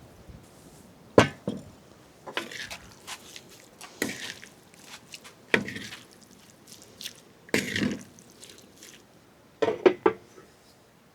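Irregular knocks and clinks of cookware and utensils being handled, about seven separate strikes, some doubled, spread over several seconds, the loudest about a second in and near the end.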